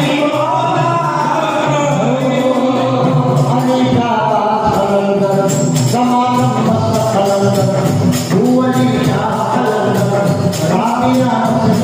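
Sufi devotional song: men singing into microphones to a steady beat of hand-held frame drums.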